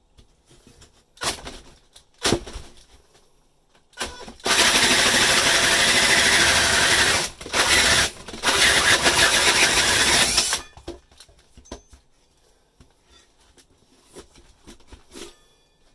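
Cordless drill driving a hole saw through plywood backing behind plasterboard. A few light knocks as the saw is set against the board, then about six seconds of loud drilling and cutting noise with two brief stops, and it winds down.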